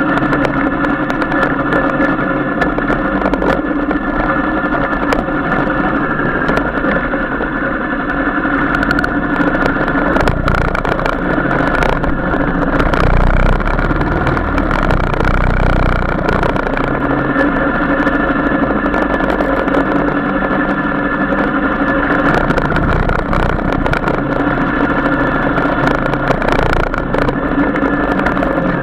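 Royal Enfield Classic 350's single-cylinder engine running steadily at riding speed, heard from on the bike, with a low rumble that grows heavier between about ten and seventeen seconds in.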